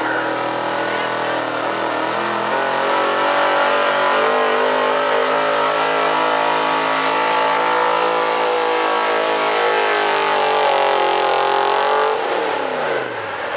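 Ford 4x4 pickup truck's engine held at high revs under heavy load while pulling a weight-transfer sled, then the revs fall off sharply about twelve seconds in as the pull ends.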